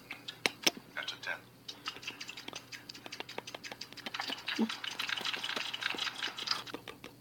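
A man's mouth smacking and slurping as he tastes ice cream off a spoon, drawing air through it: a quick run of wet clicks that thickens into a dense slurp in the second half.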